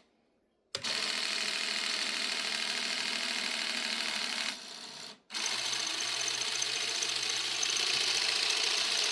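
LEGO Technic Control Centre 8094 model running under its small electric motors: a steady, fast mechanical whir. It cuts out briefly at the very start and again about five seconds in.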